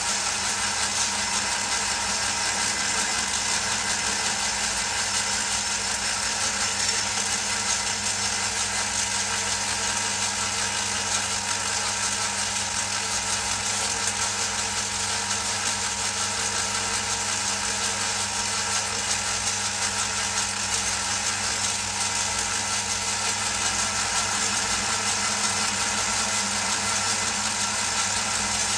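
Old metal lathe running with a steady machine hum and a hiss, while a boring bar cuts inside a workpiece spinning in the chuck to bore a seat for a bearing.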